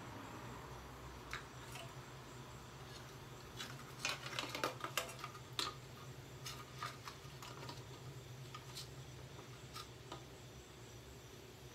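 Scattered small clicks and clatter of plastic parts as a hand-held vacuum cleaner is worked apart by hand, with a quick run of sharp clicks about four to six seconds in, over a low steady hum.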